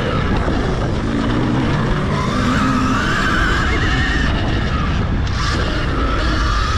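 Electric dirt bike's motor whining under racing load, its pitch rising and falling with speed, over heavy wind rumble.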